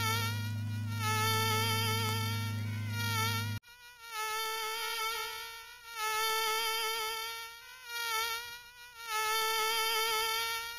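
Mosquito wing whine: a thin, wavering high hum that swells and fades several times. A low steady hum sits under it for the first three and a half seconds and cuts off abruptly.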